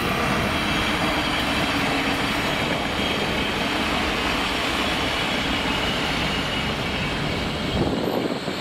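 Train running past on the tracks: a steady rumble of wheels on rail with a faint whine.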